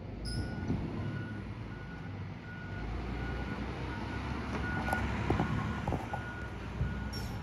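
Backup alarm of a Labrie Automizer automated side-loader garbage truck beeping steadily in reverse, about three beeps every two seconds, over the diesel engine's rumble. A few metal clanks come in about five to six seconds in.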